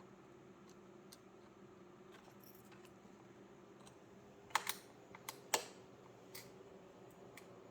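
Small sharp metallic clicks and taps of a Phillips screwdriver fastening the tiny retaining screw of an M.2 NVMe SSD in a laptop. They are scattered and light, with the loudest few close together about four and a half to five and a half seconds in.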